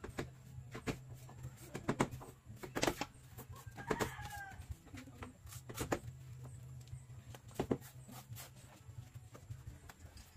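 A chicken gives a short call once, about four seconds in, over scattered knocks and scrapes of hand tools and a steady low hum.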